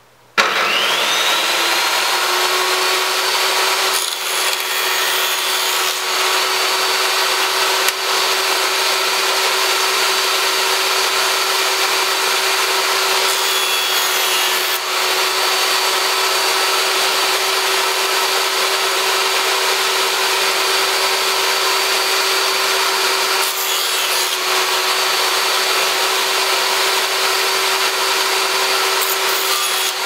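Small benchtop table saw switched on about half a second in. Its whine rises as the blade spins up, then the saw runs steadily, with brief changes in sound a few times as thin wooden shingle pieces are pushed through the blade.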